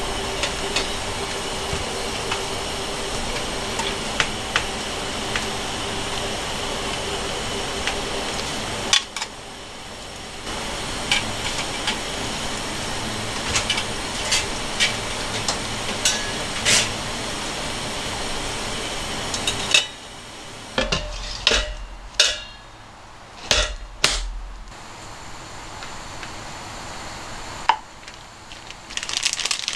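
Pot of mochi kinchaku simmering on a stove, a steady hiss with occasional sharp metal clinks from the pot and lid. After about twenty seconds it gives way to quieter, separate knocks and clatter of kitchen utensils.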